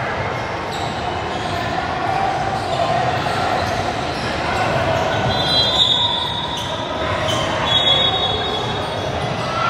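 Indoor gym ambience during a volleyball match: a steady murmur of players and spectators, with two long high-pitched squeals about five and eight seconds in.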